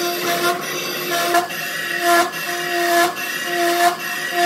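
Boring bar cutting the bore of a large steel bearing housing on a manual lathe: a loud, pitched metallic squeal in two tones that comes and goes in short pulses, with sharp ticks between them.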